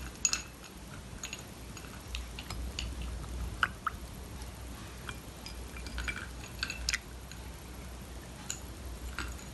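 Milk poured from a glass jug over ice cubes in a drinking glass: a soft liquid trickle with scattered clinks and ticks of ice against glass.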